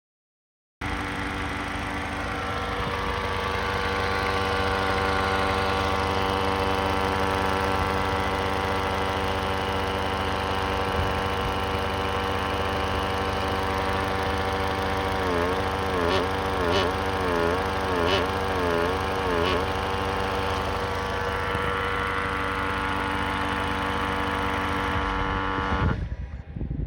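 Toyota Crown's 8AR-FTS 2.0-litre turbocharged four-cylinder engine running with the abnormal noise that returned after parts were replaced. Its tone is steady, wavers up and down in pitch about four times in the middle, then holds steady again before cutting off near the end.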